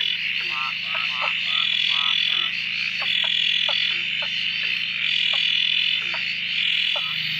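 A dense, almost deafening frog chorus: many frogs calling at once, with a continuous high trilling that swells and fades about once a second over short, lower calls repeated several times a second. It is a breeding chorus, set off by days of steady rain.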